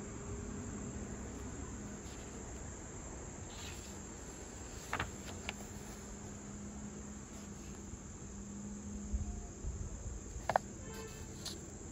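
Crickets trilling steadily at a high pitch. A few brief clicks and rustles of journal pages being handled sound about halfway through and again near the end.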